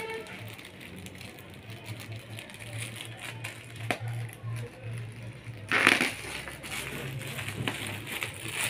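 Plastic wrapping on packed saris rustling and crinkling as the packs are handled, with one louder crinkle about six seconds in, over a steady low hum.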